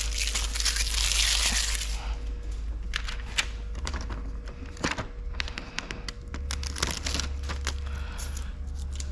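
A hiss for about the first two seconds, then the crinkling and crackling of plastic window tint film being handled, with scattered sharp clicks.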